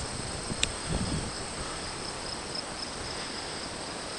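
Insects trilling steadily in the grass, a constant high chirring, with a small click about half a second in and a soft low bump about a second in.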